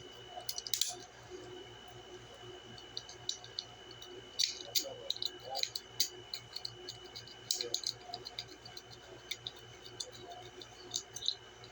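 Lock picks working a Master Lock 141 pin-tumbler padlock: small, irregular metallic clicks and scratches as the pick lifts and sets the pins under tension.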